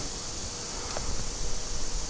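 Steady fan hiss with a faint hum underneath, and a faint click just under a second in as fingers work at the old gasket on an aluminium oil filter housing.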